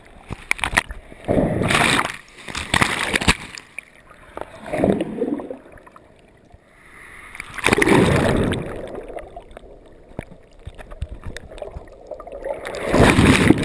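Breaking surf washing over and around an underwater camera: rushing, splashing water comes in several surges a few seconds apart, with quieter muffled stretches between, the strongest near the end.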